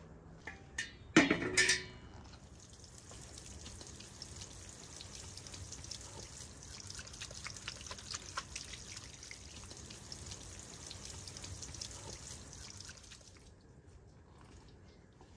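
A couple of sharp metallic clanks that ring briefly, then water running from a garden hose and splashing over hands onto soil, a steady hiss that stops near the end.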